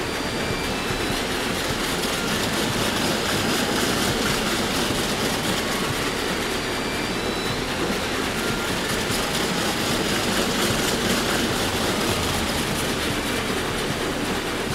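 Touch-free automatic car wash jetting high-pressure water over a car to rinse off the soap: a steady rushing spray with the machine running beneath it, swelling a little in the middle.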